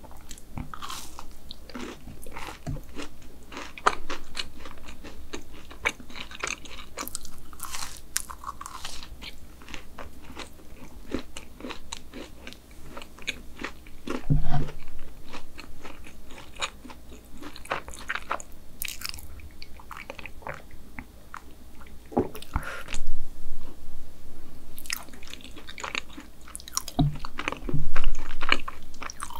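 Close-up eating sounds of a double chocolate chip brownie being bitten and chewed: soft sticky mouth sounds and many small crumbly clicks. A few louder low thuds come about halfway through and again near the end.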